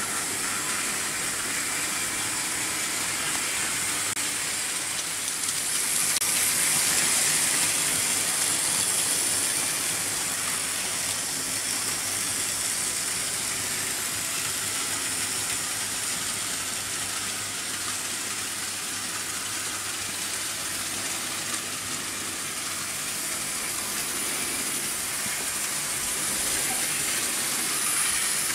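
Several Märklin H0 model trains running at once on metal M-track: a steady rushing, rattling hiss of wheels and motors. It swells about six seconds in and eases again by about ten seconds.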